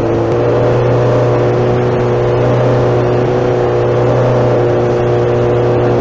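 Honda CBR600 F2 inline-four motorcycle engine running at steady cruising revs, heard from the rider's helmet camera with wind noise over it.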